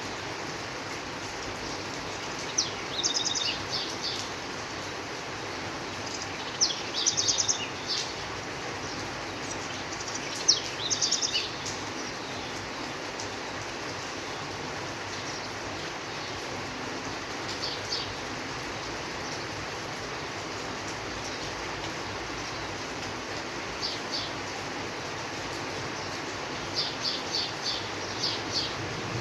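Steady rain falling, with birds chirping in short runs of quick, high notes several times.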